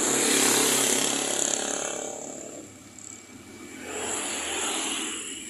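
Two motor vehicles passing close by one after another, each engine swelling up and fading away, the first louder than the second.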